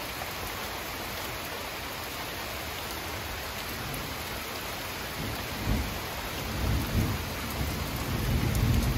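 Steady rain falling, with a low rumble of thunder setting in about five seconds in and swelling louder toward the end.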